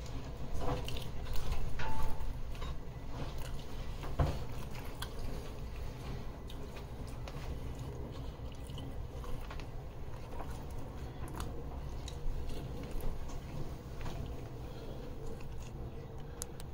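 Close-up eating sounds: a person biting into and chewing a piece of grilled peri peri chicken sandwich, with moist crunches and small clicks. The chewing is loudest in the first few seconds, with one sharper crunch about four seconds in, then carries on more softly.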